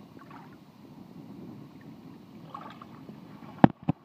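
Choppy sea water lapping and splashing against a sea kayak. Near the end, two sharp knocks about a quarter of a second apart, the first the louder.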